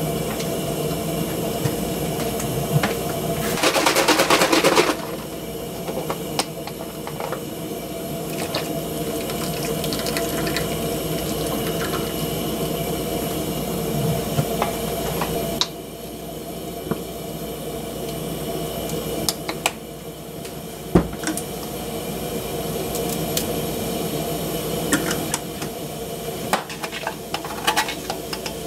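Food cooking in a pot, with a steady hiss and bubbling. A louder burst of noise comes about four seconds in, and light clicks are scattered through the rest.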